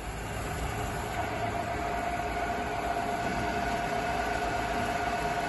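Hitachi Seiki 3ML-P horizontal milling machine running its vertical power feed: a steady mechanical hum from the feed drive, with a steady whine coming in about a second in.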